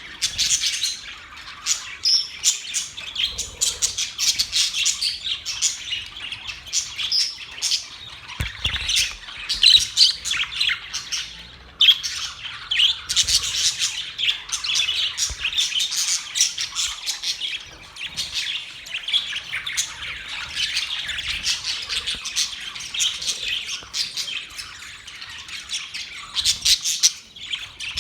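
Budgerigars chattering and chirping, many quick calls overlapping without pause, with the odd harsher squawk.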